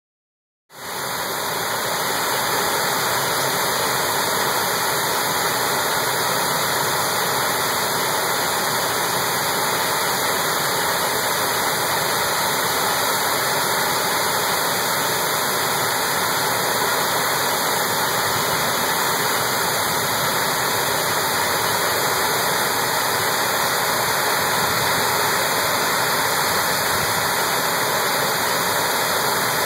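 River water pouring over a low dam's spillway and churning into the pool below: a steady, unbroken rush.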